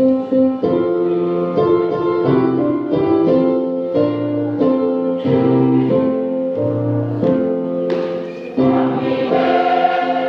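A church choir singing a hymn in several parts, with held notes that change about once a second and a bass line standing out low beneath the chords.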